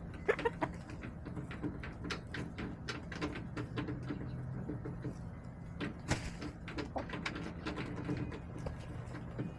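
Backyard hens clucking softly in short low notes, amid many quick taps and clicks, over a steady low hum.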